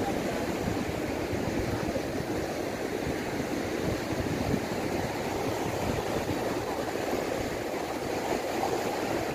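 Steady rush of sea surf breaking against a rocky shore.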